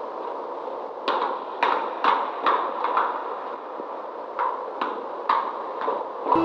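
Steady hiss with a series of sharp knocks or taps at uneven intervals, about nine in all, the hiss cutting off abruptly near the end.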